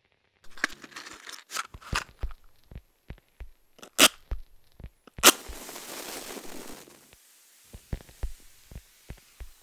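Irregular crackles and sharp clicks, with two loud snaps about four and five seconds in; the second snap is followed by a hiss lasting about a second and a half.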